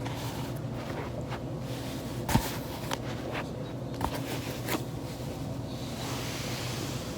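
Back being rolled on a foam roller, with a few short cracks or pops from the spine; the loudest comes about two and a half seconds in. A steady low hum lies underneath.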